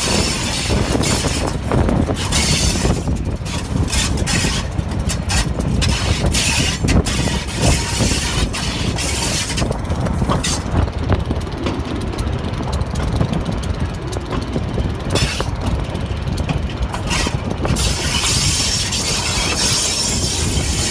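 Passenger train running along the track: a steady low rumble and rushing noise, with many irregular clicks and knocks from the wheels and rails. The hiss eases for several seconds near the middle.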